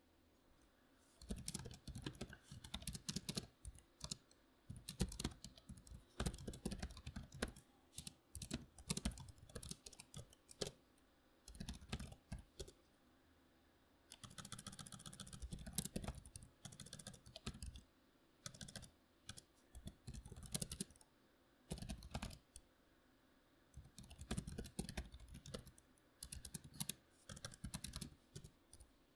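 Membrane computer keyboard being typed on in quick bursts of keystrokes with short pauses between, starting about a second in. Near the middle there are a couple of seconds of steadier scratchy noise.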